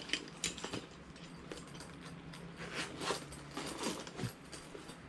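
Stationery and small plastic items being handled and set down: an irregular run of light clicks and rustles.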